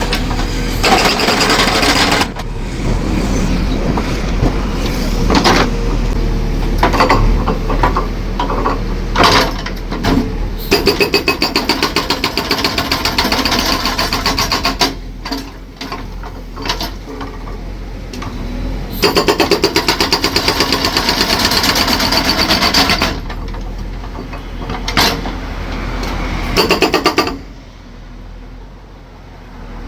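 Concrete-breaking demolition machine hammering concrete: rapid, evenly repeated blows in several bursts of a few seconds, with a heavy engine running between them.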